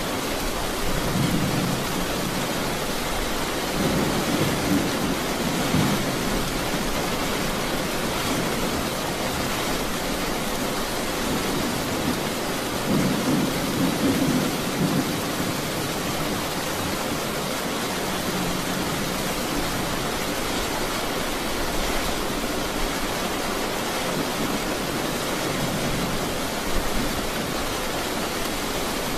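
Heavy rain pouring steadily, with thunder rumbling low and swelling several times, most strongly about a second in, around four to six seconds in, and around thirteen to fifteen seconds in.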